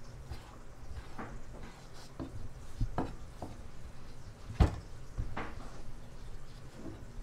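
Irregular knocks and taps of a knife and hands on a plastic cutting board, with one sharp louder knock a little past the middle, over a low steady hum.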